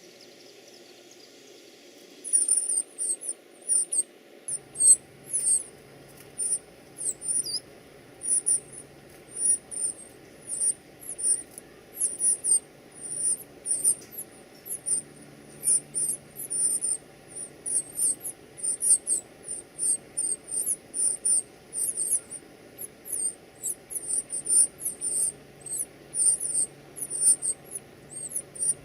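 Nestling birds making high, squeaky begging calls, a steady string of short chirps, two or three a second, starting about two seconds in.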